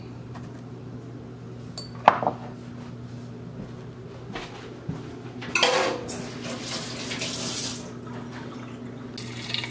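Glass bowls and kitchenware being handled on a counter, over a steady low hum: a sharp clink about two seconds in, then a longer stretch of clattering from about five and a half to eight seconds.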